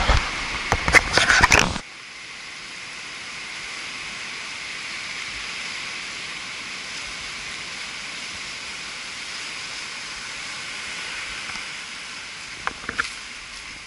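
Surf washing in on a sandy beach: a steady hiss that swells slowly and eases off again. For about the first two seconds, loud buffeting and knocks on the microphone cover it until a sudden cut.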